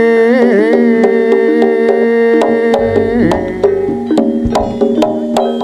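Live jaranan gamelan music: a long-held, wavering melody note over a steady lower tone, with sharp drum strokes coming more often in the second half.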